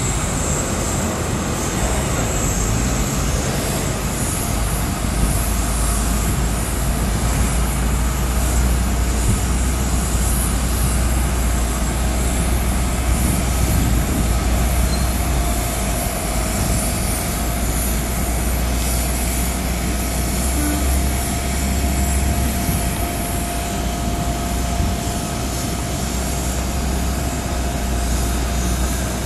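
Auxiliary power unit of an Airbus A330-200 freighter running steadily ahead of engine start: a continuous low rumble with a thin, steady high-pitched whine over it.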